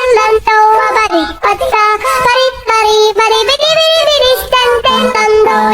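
A song with a high-pitched singing voice that moves between held notes without pause, over backing music.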